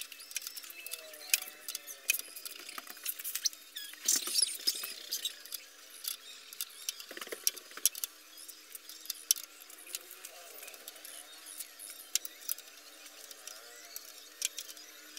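Irregular metallic clicks and clinks of a hand spanner working the front fork bolts of a Honda EX5 Dream moped, with two longer rattling scrapes about four and seven seconds in.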